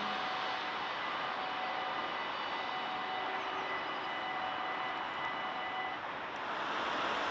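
Dutch level-crossing bells ringing steadily while the half-barriers rise, stopping about six seconds in as the barriers reach upright, over a steady rushing background noise.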